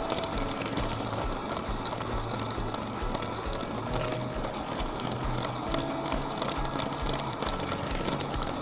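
LEGO train running on plastic track, heard from a camera riding on it: a steady motor rumble with a regular run of light clicks as the wheels pass over the rail joints.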